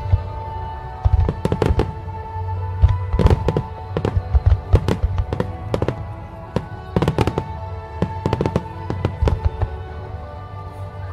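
Aerial firework shells bursting in quick clusters of sharp bangs, several rapid volleys, over music with long held tones.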